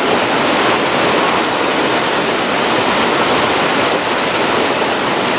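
Steady, loud rush of turbulent white water pouring through a dam gate into an irrigation canal.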